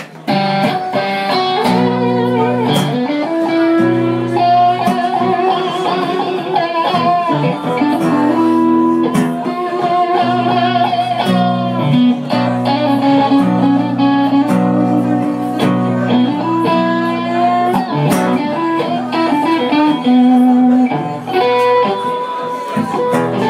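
Electric guitar and acoustic guitar playing a blues instrumental passage. Wavering lead notes ride over a steady lower accompaniment.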